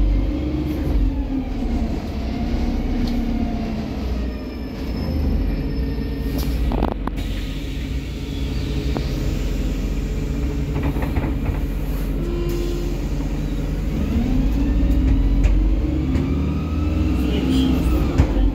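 Cabin of a MAZ-203 compressed-natural-gas city bus under way: a steady low rumble of engine and road, with the engine note rising and falling as the bus gathers speed. A single sharp knock about seven seconds in.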